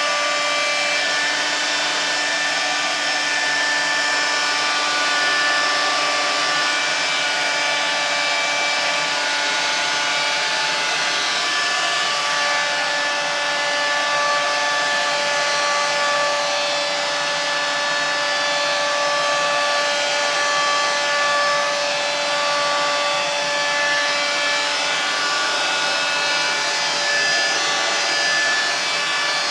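Electric heat gun running steadily: the whine of its motor over the rush of its fan.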